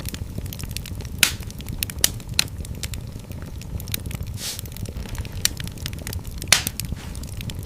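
Wood fire burning in a fireplace: a steady low rumble of flames under frequent small crackles, with a few louder pops, the loudest about six and a half seconds in, and a short hiss about halfway through.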